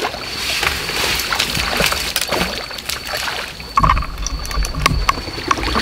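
Water sloshing and scattered small clicks at the edge of a pond, under a steady thin high-pitched tone. About four seconds in comes a low rumbling with rustling, as a crucian carp rod is lifted to strike a bite.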